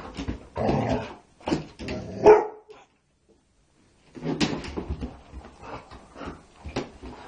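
Yellow Labrador Retriever barking a few times in the first couple of seconds. After a short break, quick knocks and scuffs follow as the dog noses and mouths a ball on a hardwood floor.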